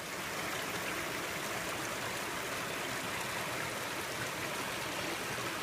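Ramsey Creek running: a steady rush of flowing water over rocks.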